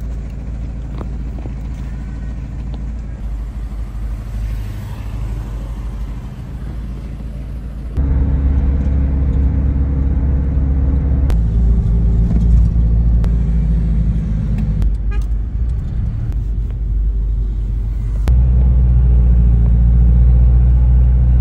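Steady low rumble of a motor vehicle running, stepping abruptly louder about eight seconds in and changing character twice more.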